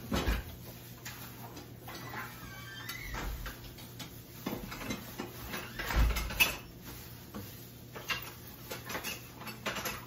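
Kitchen handling noises: dishes and utensils clattering and being moved about, with scattered knocks and a louder thump about six seconds in.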